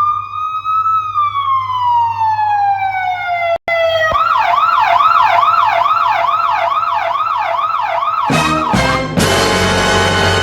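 Electronic police siren sound effect: one slow wail that rises and then falls, then after a brief break a fast yelp of about three rise-and-fall sweeps a second. A different, steady sound effect starts about nine seconds in.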